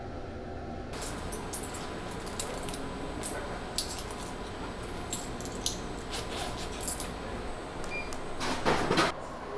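Coins clinking and jingling as they are handled and fed one by one into a drink vending machine, with a louder rattling clatter near the end.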